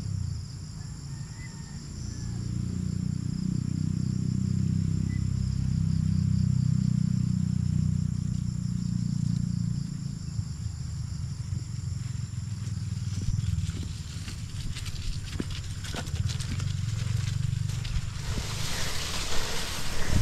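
Steady high-pitched buzz of insects in the grass over a low rumble that swells for several seconds and then eases. Near the end, a gravel-loaded wheelbarrow rolls over the grass path, rattling.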